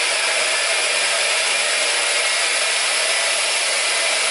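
A small vertical bandsaw running steadily with no workpiece on its table, a constant motor-and-blade whir.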